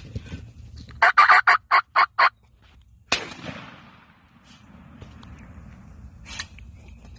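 Wild turkey gobbling: a quick run of about six loud notes, lasting just over a second. About three seconds in comes a single sharp bang that dies away over about a second.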